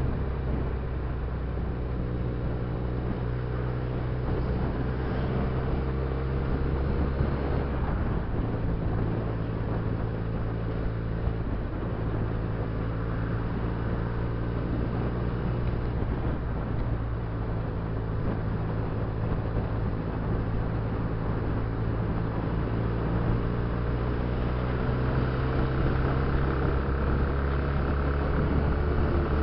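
Benelli TNT300's 300 cc parallel-twin engine running under way as the motorcycle rides through traffic, its note rising and falling with the throttle and climbing over the last few seconds, over steady wind and road noise.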